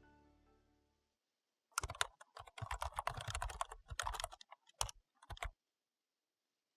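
Background music fades out in the first second. Then a computer keyboard types in quick clattering keystrokes for about three and a half seconds, ending with a few last separate keystrokes.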